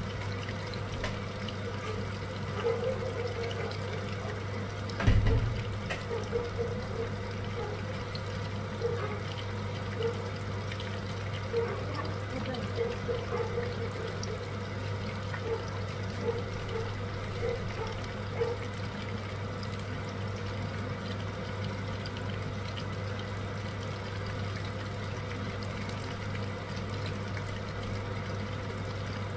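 Spring rolls frying in hot oil: a steady bubbling, crackling sizzle over a low steady hum, with a single knock about five seconds in.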